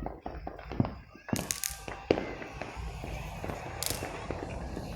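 Fireworks going off: a quick cluster of sharp cracks and pops about a second and a half in, another pop near two seconds, and a short crackle near four seconds.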